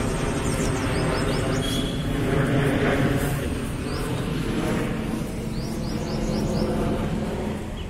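Small birds chirping in clusters of short high notes over a steady low rumble of traffic from a nearby highway.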